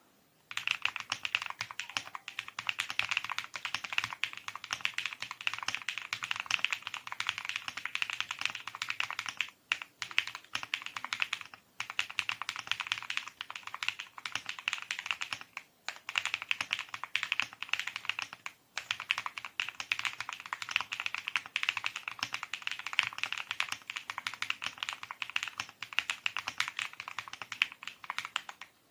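Fast, continuous typing on a custom mechanical keyboard with NightSakura switches: a dense stream of key clacks that starts about half a second in and breaks off briefly four times.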